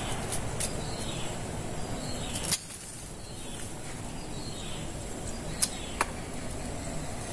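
A cutter knife shaving and cutting a thin lantana stem to prepare a graft: a few small sharp clicks, one about a third of the way in and two close together near the end, over a steady background noise.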